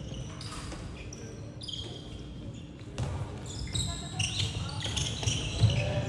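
Indoor handball game in a sports hall: sneakers squeaking on the court floor, the ball bouncing and knocking, and players calling out across the echoing hall.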